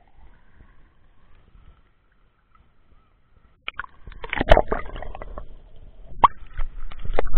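Water churning and sloshing around an underwater camera, heard muffled, with sharp knocks and clicks against the housing. It is faint for the first three and a half seconds, then turns loud and turbulent about four seconds in, with further knocks near the end.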